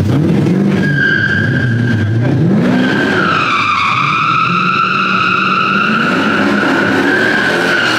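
A car's tyres squealing in a long slide while its engine revs up and down. The squeal starts about a second in and grows stronger a couple of seconds later.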